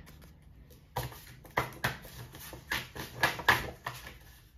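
Stiff paper greeting cards being handled, slid and set down on a pile: a quick run of about eight short rustles and light taps of card against card and table.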